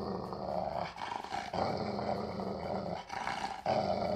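A recorded dog growling, played into the radio broadcast. It comes in a few long stretches with brief breaks between them.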